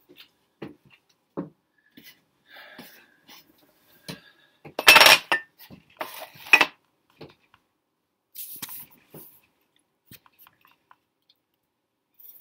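Scattered small clicks and rustles of hands handling a small cigar, with a loud clatter about five seconds in and another about six and a half seconds in.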